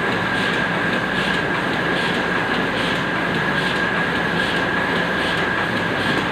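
QZ201 paper cutting machine running steadily while cutting double covers: a continuous machine drone with a steady high whine and a soft, evenly repeating pulse.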